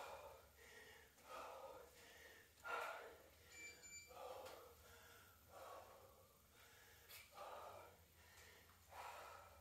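A woman breathing hard to recover after intense cardio: quick, faint breaths in and out, about one every second or so.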